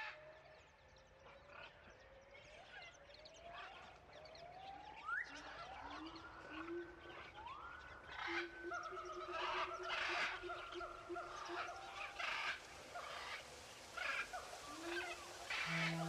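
A one-month-old kitten mewing repeatedly, a series of short rising calls about a second apart, with scattered clicks and rustles. Steady music tones come in right at the end.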